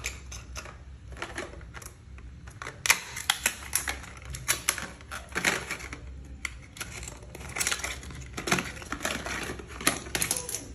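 Small cardboard toiletry boxes and their plastic contents being handled on a stone countertop: irregular quick clicks, taps and light scrapes of card and plastic, many to the second at times.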